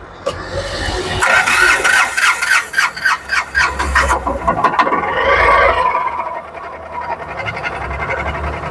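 Freshly overhauled Tata Ace Mega turbo-diesel engine turning over on its starter motor with the injector connector unplugged, so it cranks without firing. The cranking beats at about five pulses a second for about three seconds, then turns rougher and uneven.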